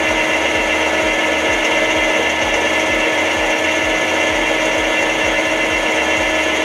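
Metal lathe running steadily while a tool faces the end of a brass bushing blank that spins with a wobble.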